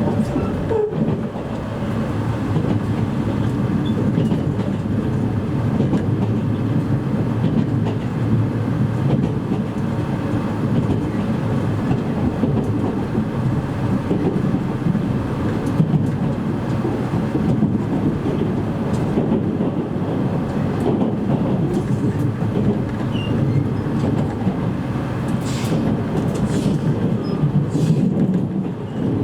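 Steady running rumble heard inside a JR East E653 series electric train car at speed, with wheels rolling on rail and a few light clicks over rail joints.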